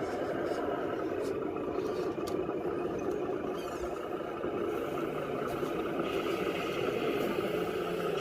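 Radio-controlled crawler's motor and drivetrain whirring steadily, with a few light clicks.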